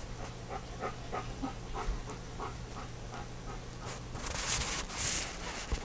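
German Shepherd panting steadily with its mouth open, about three to four breaths a second. About four seconds in, a louder rustling hiss covers it for a second or so.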